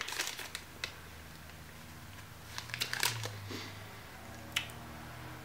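Faint crinkling of a protein-bar wrapper being handled, in a few short bursts, the clearest about three seconds in, with a light click later.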